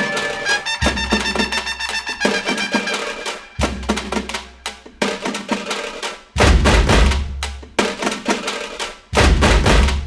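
Bhojpuri song music with a busy drum beat of rapid hits; deep bass hits come in about six seconds in and again near the end.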